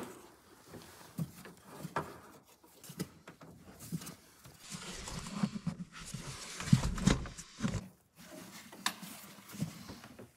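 Hand work on plastic engine-bay trim: irregular clicks, knocks and scraping as a loosened plastic part is worked free, with a burst of heavier knocks about seven seconds in.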